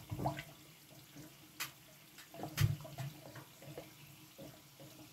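Molten wax boiling around a wooden bee box in a wax-dip tank: irregular bubbling with scattered sharp pops and crackles, as moisture in the wood steams out into the hot wax.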